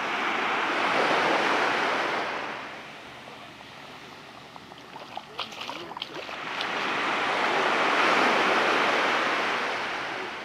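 Sea waves washing onto a beach, two swells of surf several seconds apart with a quieter lull between them. A few faint clicks fall in the lull.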